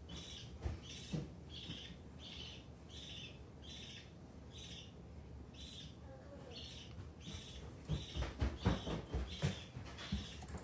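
A hatching budgerigar chick peeping over and over, short high peeps about two a second with one brief pause. Soft handling bumps come about eight seconds in.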